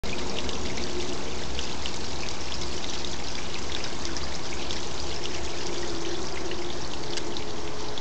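A small waterfall trickling and splashing down a rock wall: a steady pour of water with many small splashes.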